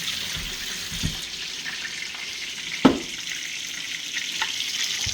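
Seasoned chicken browning in hot oil in a pot, a steady sizzle, with one sharp knock about three seconds in and a few light clicks of kitchen utensils.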